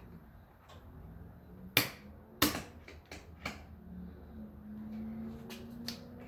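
Sharp plastic clicks and snaps: two loud ones close together about two seconds in, then several lighter ones, as a plastic roof moulding is worked and popped into place on the car's roof channel.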